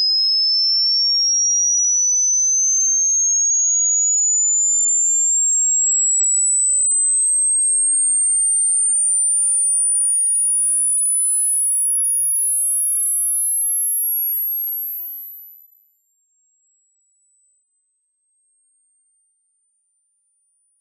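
A single pure test tone sweeping slowly and steadily upward in pitch, from high to very high. This is a hearing-age test sweep: the higher it climbs, the younger the ear must be to still hear it.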